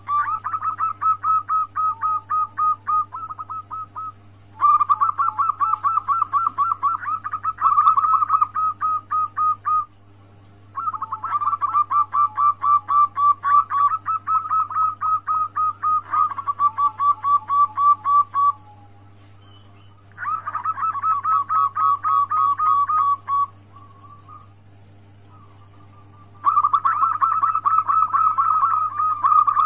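Female zebra dove (perkutut) calling to a male in five bouts of rapid, repeated cooing notes, each a few seconds long with short pauses between: the call used as a lure to bring males into breeding condition. A steady high ticking, about three a second, runs underneath.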